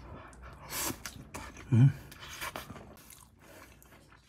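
A person eating: mouth and chewing sounds with two sharp breaths, and a short low hummed "mm" about two seconds in, the loudest sound.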